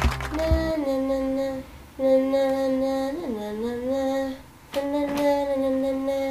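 A woman humming a slow tune in long held notes, in three phrases with short breaks between them. A music track with a beat cuts off just under a second in.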